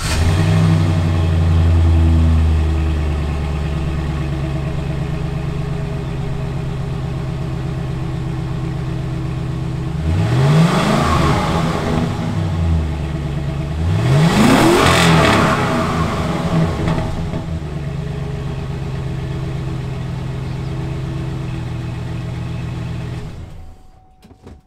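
2006 GMC Sierra 1500's Vortec V8 through its stock muffler and exhaust, running just after starting, settling to idle. It is revved twice, to about 2000 RPM and then about 5000 RPM, rising and falling back to idle each time. It is switched off near the end.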